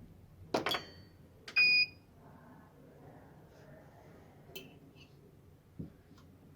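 A couple of sharp clicks, then one short electronic beep from the BGA rework station, typical of its heating program being started; a few light ticks follow.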